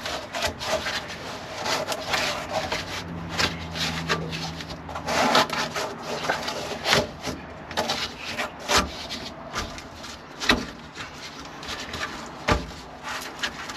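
A cut piece of insulation board being pushed and worked into a canopy panel opening: rubbing and scraping, with irregular sharp knocks as it is pressed into place.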